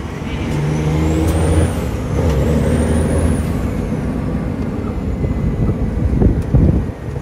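A semi truck's diesel engine pulling under load, heard from inside the cab. Its note climbs, drops about two seconds in as a gear change is made, then climbs again, with a high whistle rising and falling over it.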